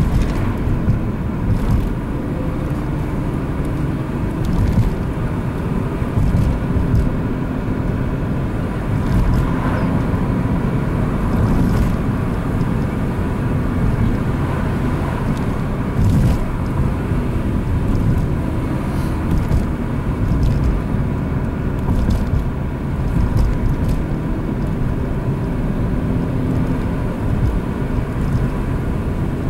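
Opel Astra Coupe driving through town at a steady pace: continuous engine and tyre noise, with a few light knocks along the way.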